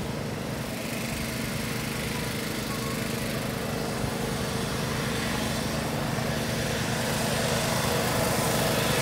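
Steady hum of a small motor, growing gradually louder: the air blower that keeps an inflatable bouncy castle inflated.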